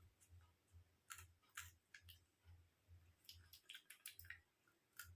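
Near silence with faint, irregular mouth clicks and crunches of a person chewing a raw chilli, thickest about three to four seconds in, over a faint low throb about twice a second.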